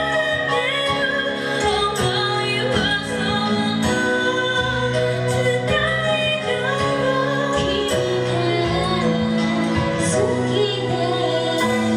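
Live music: a woman singing a melody over instrumental accompaniment.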